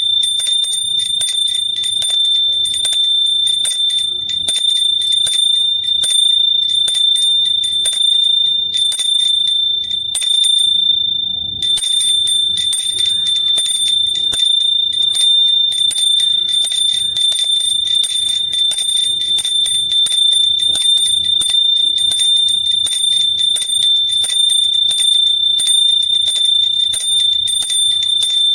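Hand bell shaken continuously, its clapper striking rapidly over a steady high ring. A little before halfway the strikes let up for about a second while the ring hangs on, then the shaking resumes.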